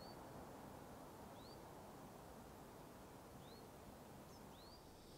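A faint bird calling over a quiet background hiss: four short, high chirps that rise and tip over, a second or two apart.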